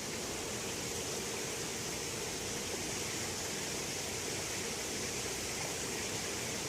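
Steady, even hum of honeybees around the opened hive, with a constant hiss above it.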